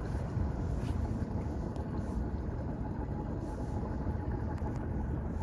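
Steady low rumble of a motorboat's engine running on the water, mixed with wind noise on the microphone.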